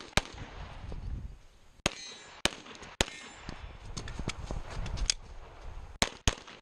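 Close-range shots from a 9 mm Glock 34 pistol, fired in strings. One shot comes just after the start, then three about half a second apart around two to three seconds in, then a fast run of three near the end.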